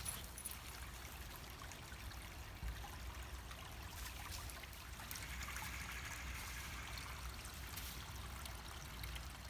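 Creek water trickling and running steadily.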